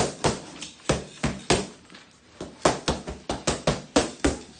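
Boxing gloves smacking focus mitts in fast combinations: about fifteen sharp pops in quick runs, with short pauses between the runs.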